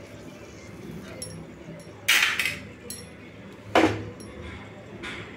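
Steel cooking utensils clinking against cookware: a quick double knock about two seconds in and a single sharp knock near four seconds, over a low steady hum.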